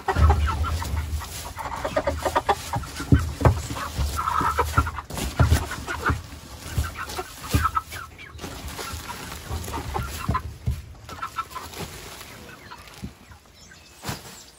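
A flock of chickens clucking continuously, with scattered sharp knocks among the calls; the clucking thins out near the end.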